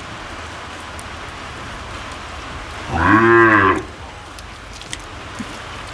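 A cow moos once about three seconds in: a short call of just under a second that rises and then falls in pitch.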